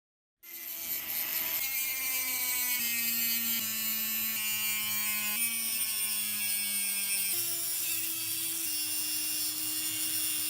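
Electric power tool running steadily, with a motor whine whose pitch shifts up and down several times over a strong hiss of abrasion.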